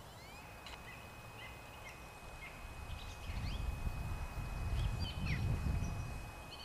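Outdoor ambience of small birds chirping and calling in short, scattered phrases, with a faint steady high tone under them. A low rumble swells in the second half.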